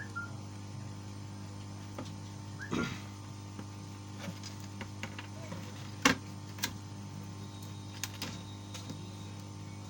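Steady low electrical mains hum with a few sharp clicks and taps scattered through it, the loudest about six seconds in.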